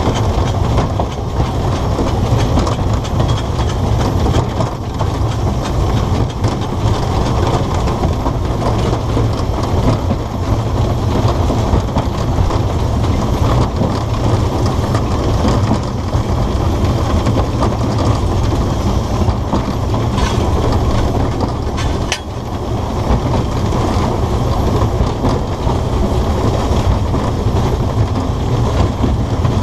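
Footplate noise of a narrow-gauge steam locomotive on the move: a steady, loud rumble and rattle from the engine and its wheels on the track.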